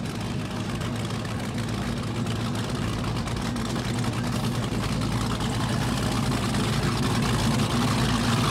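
Four Mercury Racing 1200 stern-drive engines of a 50-foot Nor-Tech Roadster offshore powerboat idling together with a deep, steady drone that slowly grows louder.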